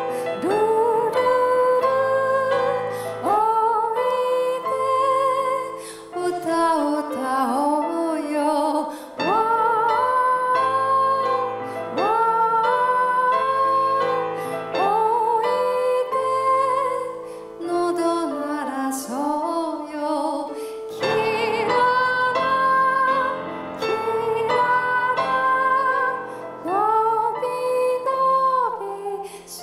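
A woman singing live into a microphone, long held notes with vibrato, to piano accompaniment.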